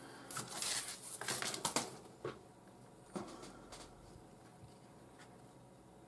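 550 paracord rustling and sliding through a loop as it is handled, a cluster of short scratchy brushing noises in the first two seconds and a few more around three seconds in, then only faint room tone.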